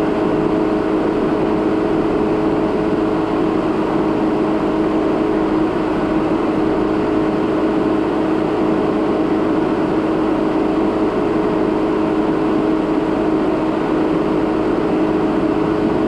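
2017 Jeep Renegade Trailhawk driving slowly on a dirt road, heard from inside the vehicle: a steady drone with the rumble of the tyres on sand and gravel.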